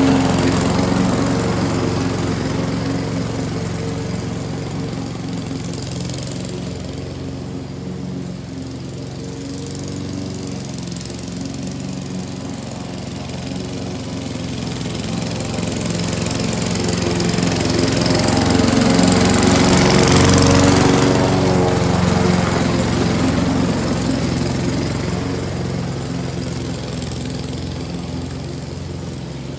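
Walk-behind gas lawn mower running steadily while cutting grass. It is loudest at the start as it passes close by, fades as it moves off, swells again around twenty seconds in, and then fades once more.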